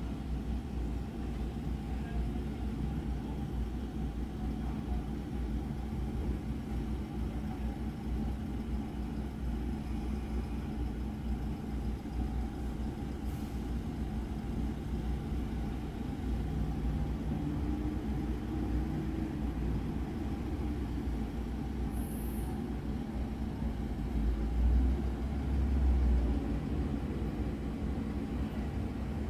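Steady low rumble of distant traffic, with a brief swell about 25 seconds in.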